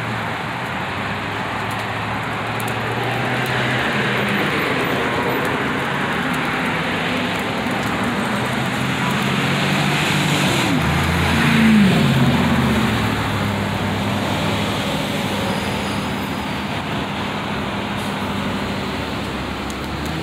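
Steady road traffic noise from passing cars. About twelve seconds in, one vehicle goes by close, louder, with its pitch falling as it passes.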